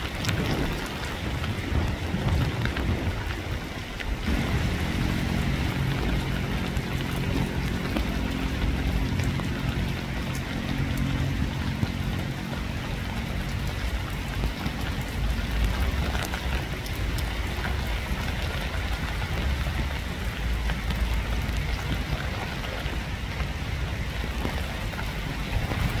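Steady rain falling, with individual drops ticking. A low, steady hum sits under the rain from about four seconds in to about fourteen seconds in.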